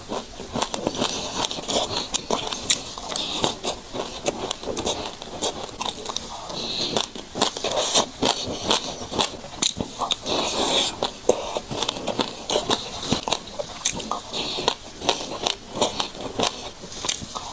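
Sesame seeds being chewed by mouth: dense, fine crunching and crackling clicks, spoonful after spoonful.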